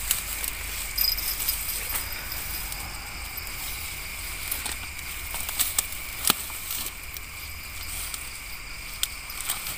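Steady high-pitched chorus of night insects, with scattered sharp clicks and knocks from a fishing rod and reel being handled.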